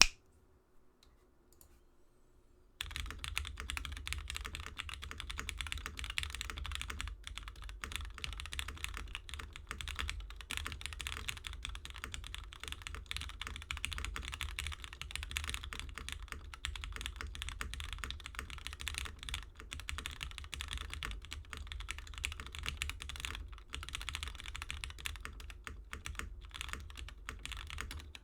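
Typing on a Frog TKL mechanical keyboard with lubed and filmed Cherry MX Black linear switches, an FR4 half plate and GMK keycaps. About three seconds in, fast continuous typing starts, a dense run of key strokes and bottom-outs.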